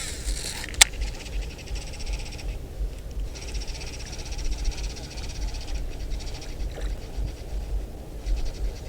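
Wind buffeting the microphone as a low rumble, under a fast, fine high-pitched rattle that comes in stretches of two or three seconds with short breaks. A sharp click about a second in.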